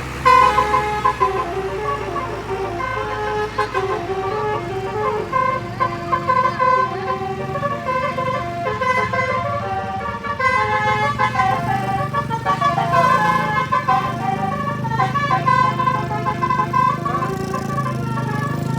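Telolet horn of an Albani Trans bus: a multi-tone musical horn playing a tune of quick stepped notes, over the low rumble of engines.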